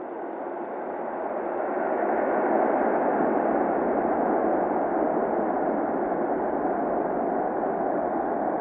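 Boeing 747 jet engine noise on the runway after landing, building over the first two seconds and then holding steady.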